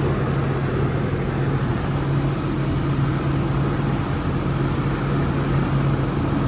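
Jeep Liberty's V6 engine idling with a steady, even hum and a constant low tone. The ignition coil has just been replaced and the scanner shows no misfires on any cylinder, so the idle is running smoothly.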